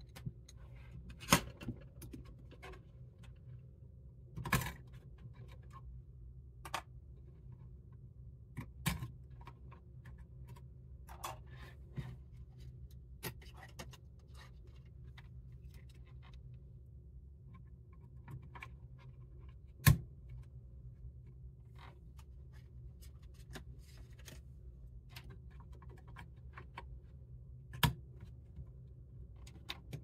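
Hands handling laptop memory modules (SO-DIMMs) and fitting them into a mini PC's memory slots: scattered light clicks, taps and scrapes, with a few sharper snaps as the sticks seat. A steady low hum runs underneath.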